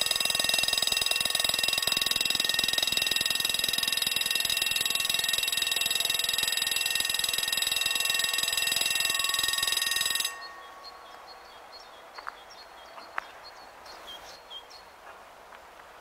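Level-crossing warning bell ringing with a steady, many-toned electronic ring, warning of an approaching train while the half-barriers lower; it cuts off suddenly about ten seconds in. After that, faint bird chirps are heard.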